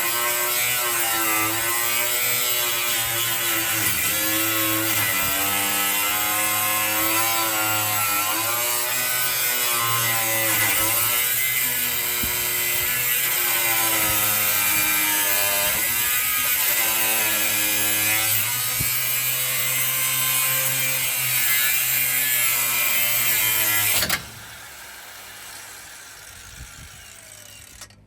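Power tool cutting metal, its pitch dipping and rising as it bites under load, then stopping suddenly about 24 seconds in: the original bump stop being cut off the truck frame.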